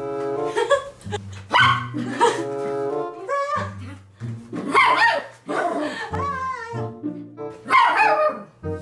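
Toy poodle barking in short, insistent bursts, about five times, demanding attention, over background music with low sustained bass notes.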